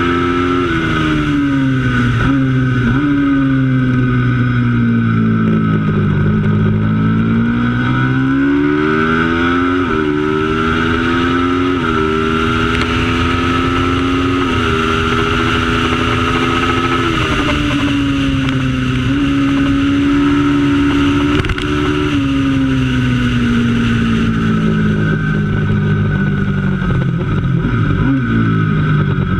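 Racing motorcycle engine at race pace, its pitch climbing under acceleration, stepping down at gear changes, and falling away as it slows for corners before climbing again.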